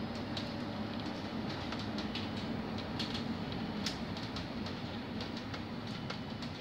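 Cabin sound of a Škoda 31Tr trolleybus on the move: a steady low hum and rumble of the running vehicle, with frequent light rattles and clicks from the body and fittings.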